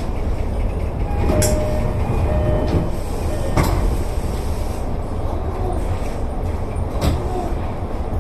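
Electric commuter train running along the line, heard from the front cab: a steady low rumble with a few sharp clacks of the wheels over rail joints.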